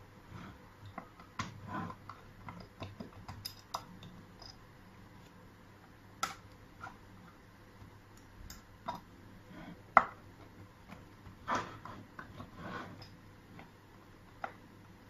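Irregular small clicks and knocks of hands fitting the back plate and screws of a mechanical pushbutton door lock, with one sharper knock about two-thirds of the way through.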